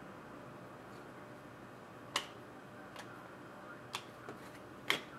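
Trading cards being handled on a table: four short, sharp clicks, spaced about a second apart, over a quiet background.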